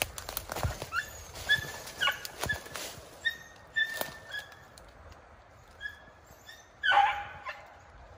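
A beagle whining in many short, high whimpers, with one louder, lower yelp about seven seconds in. Steps crunch through dry leaves over the first three seconds.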